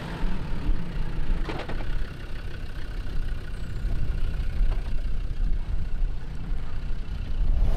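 Land Rover Defender 90 engine running with a low rumble while driving through soft sand, with a couple of light knocks or rattles.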